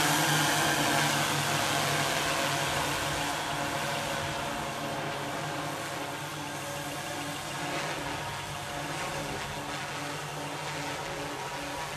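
An eight-rotor MikroKopter multicopter's electric motors and propellers whir steadily as it flies away. The sound grows fainter over the first several seconds, then levels off.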